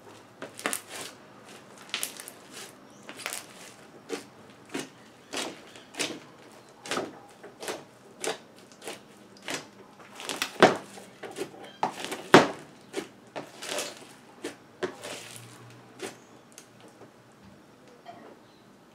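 Floam slime packed with styrofoam beads crackling and popping as hands squeeze and press into it. It gives an irregular run of clicky crunches and air-bubble pops, roughly one or two a second, thinning out near the end.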